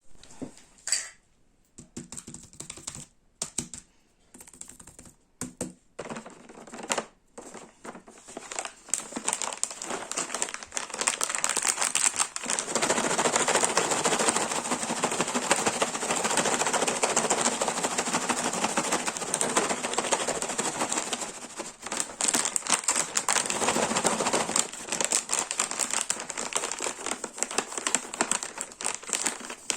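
Plastic snack packaging crinkling and rustling as it is handled: sparse sharp crackles at first, then a long stretch of dense, continuous crinkling, breaking up again into crackles near the end.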